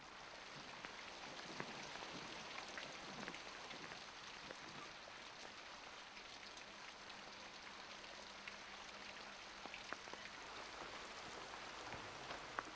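Soft, steady rain, with many separate drops ticking here and there.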